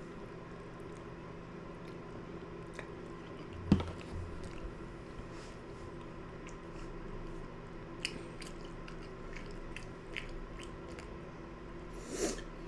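Close-up mouth sounds of a person chewing a mouthful of tough fettuccine noodles, with small wet clicks throughout. A single sharp knock about four seconds in is the loudest sound, and a short breathy noise comes near the end.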